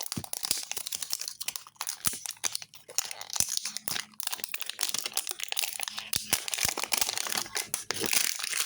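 Plastic wrapping on a toy package being picked at, peeled and torn off by hand, crinkling and crackling throughout with many small irregular crackles.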